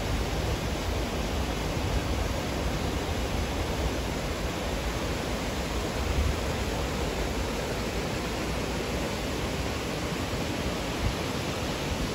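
Water of a small waterfall and rocky stream rushing steadily, a continuous hiss with a deep rumble underneath.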